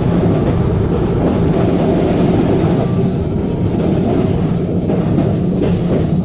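W6-class tram running along a street track, heard from inside at the front of the car: a loud, steady running noise that holds even throughout.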